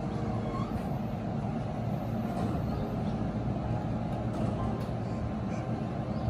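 E233-series electric commuter train standing at the platform, its onboard equipment giving a steady low hum.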